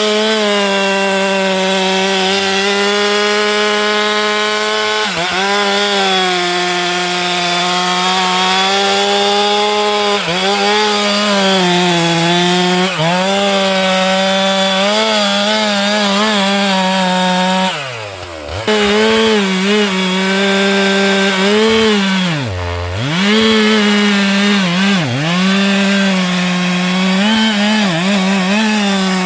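Stihl MS 462 two-stroke chainsaw running at full throttle, cutting through a sengon trunk. Its pitch sags briefly several times as the chain bogs under load, dropping deepest twice in the second half before picking back up.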